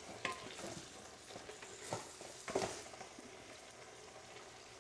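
Wooden spoon stirring flour into cooked onions in a stainless steel stockpot, a few soft scrapes and knocks against the pot about half a second, two and two and a half seconds in, over faint sizzling.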